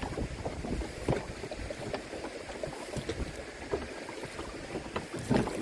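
A canoe being paddled: water splashing with irregular small knocks and clatter, and a louder burst of noise near the end.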